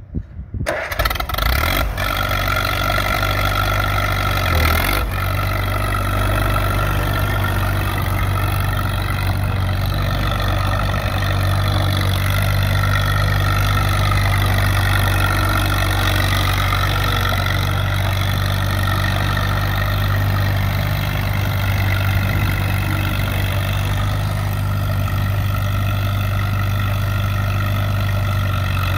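1951 Allis-Chalmers WD tractor's four-cylinder gasoline engine catching within the first second, then running steadily as the tractor is driven. The engine's pitch rises and falls a little through the middle.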